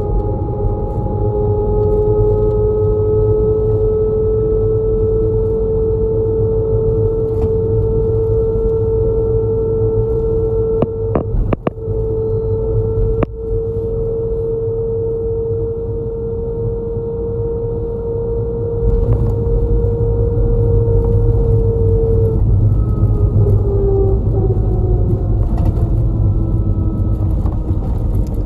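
Inside a moving route bus: steady engine and drivetrain drone over low road rumble, with a strong steady whine. A few sharp knocks come around the middle, and the whine drops in pitch about two-thirds of the way through.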